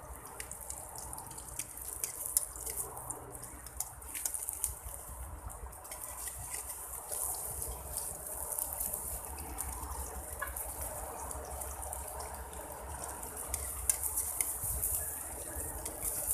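An egg frying in a metal pan over a wood fire: a steady sizzle full of small pops and crackles, with a few louder ticks.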